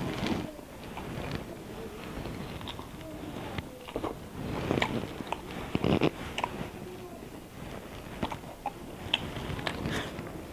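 Close mouth sounds of a person eating by hand: irregular chewing and smacking on a mouthful of rice and boiled quail eggs, with small clicks and rustles of fingers working food on a plate.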